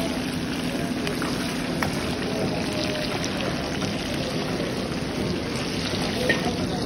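Chicken pieces deep-frying in a karahi wok of hot oil: a steady sizzle, with a few light clinks of metal utensils.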